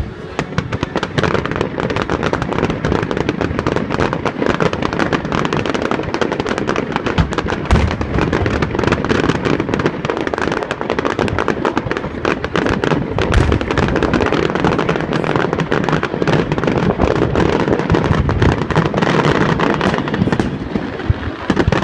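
Fireworks finale barrage: aerial shells bursting in a dense, continuous volley, many overlapping bangs every second, loud throughout.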